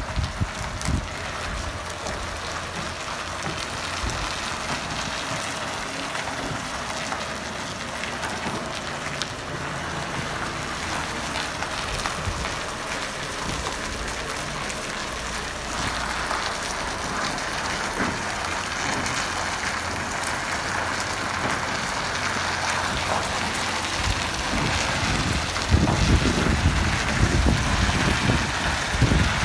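Diesel log truck with a fully loaded timber trailer moving slowly and manoeuvring through a tight turn, its engine running steadily under a constant hiss of noise. The engine's low rumble grows louder near the end.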